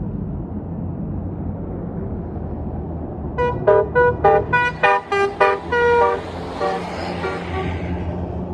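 A bus's basuri 'telolet' horn playing a quick tune of about a dozen short notes at changing pitches, over the steady rumble of a diesel bus engine. A rushing noise follows as the horn tails off.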